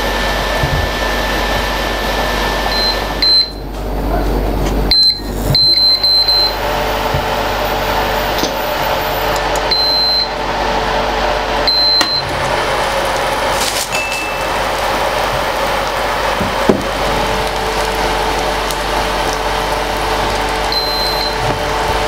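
An induction hob runs with a steady hiss and hum as food cooks on it. Short high electronic beeps from its touch controls come in a quick cluster a few seconds in, and singly several times later.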